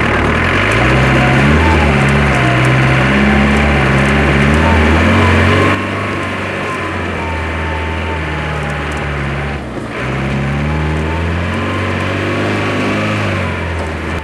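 Off-road prototype's engine revving up and down again and again under load, louder for the first few seconds and then dropping back.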